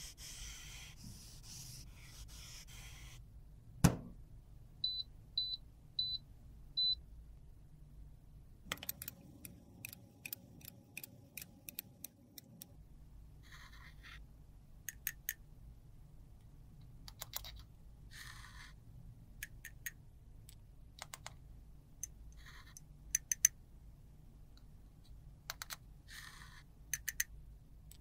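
Crushed eyeshadow powder being rubbed and scraped, then worked with a metal spatula, which ticks and scrapes against a small glass cup and a metal pan. A sharp click comes about four seconds in, followed by four short, high beeps.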